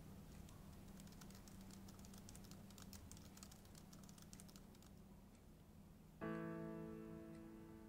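Fast, soft typing on a laptop keyboard for about four seconds over a low steady hum. About six seconds in, a piano chord sounds and slowly fades.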